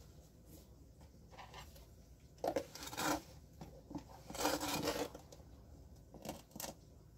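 Metal spoon scraping and scooping sugar out of a plastic container. There are two spells of gritty scraping, the longer one about halfway through, then two light taps near the end.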